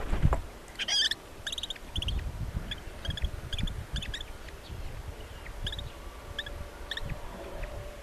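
Red-footed falcons calling in short series of rapid, high chattering notes, repeated several times as the male arrives at the nest with food for the chicks. Low knocks and scuffling on the wooden nest box run underneath, loudest just at the start.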